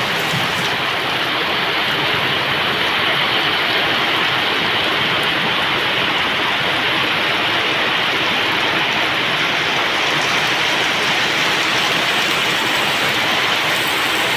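Heavy tropical downpour: a steady, loud hiss of rain pouring down, hard enough to flood the road.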